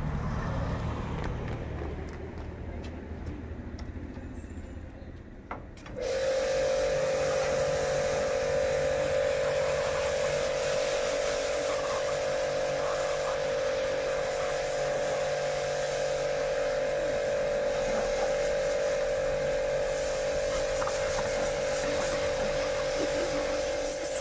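A pressure washer starts about six seconds in and runs with a steady whine while its water jet sprays against a car's windows and body panels. Before it starts there is a low vehicle engine hum.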